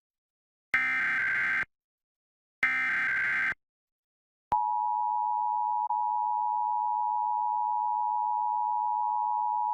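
Emergency Alert System SAME header: two short warbling digital data bursts about a second long with silent gaps between them. About four and a half seconds in, the EAS attention signal starts: a steady two-tone beep (853 and 960 Hz together) that holds without change, announcing a Required Monthly Test.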